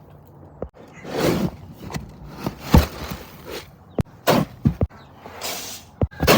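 Chicken feeder being refilled by hand: irregular knocks and several short rustling swishes of feed and container handling.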